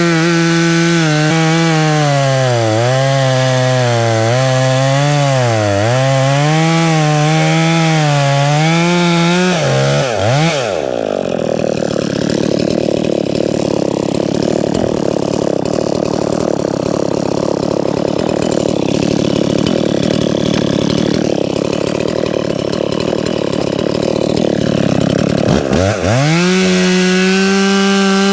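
A two-stroke chainsaw, the Dolmar 510, runs at high revs with its pitch wavering as it works. About ten seconds in, the engine note drops away and a rough sawing noise takes over for some fifteen seconds. The engine note then rises back near the end.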